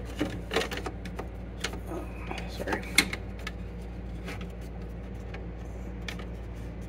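Creality K1 Max print head and its cable chain being pushed by hand along the X-axis rods: irregular light clicks and knocks, thickest in the first few seconds and then sparse, over a steady low hum.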